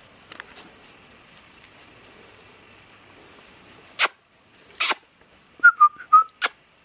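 Bernese mountain dog puppies play-fighting: two sharp noisy sounds about four and five seconds in, then a quick run of short high yelps, and a last sharp sound near the end.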